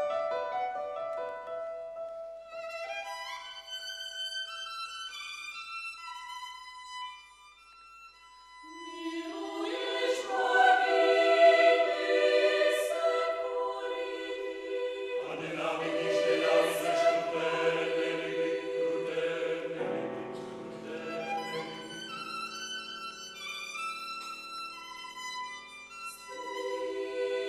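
Mixed choir singing a classical piece with a solo violin. The music thins to a quiet moment about eight seconds in, then the full choir comes in loudly, with low men's voices joining a few seconds later.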